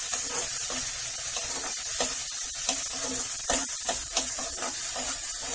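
Tomato, ginger and green-chilli masala sizzling in hot oil in a steel kadhai while it is stirred, with scrapes and taps against the pan scattered through the steady sizzle. The masala is being fried until the oil separates.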